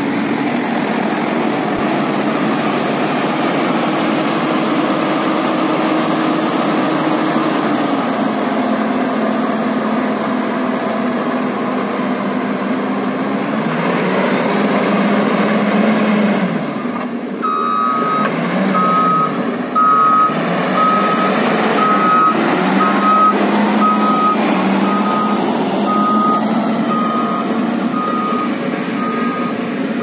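Motor grader's diesel engine running steadily under load while levelling the road base. From about halfway through, a reversing alarm beeps about once a second.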